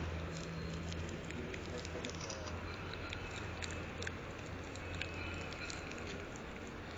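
Outdoor street background: a steady low hum with scattered faint clicks and rustles.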